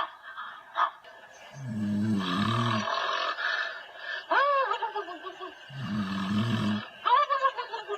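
Loud snoring: two long, rough, rasping breaths in, about four seconds apart, each followed by a short whine that rises and falls on the breath out.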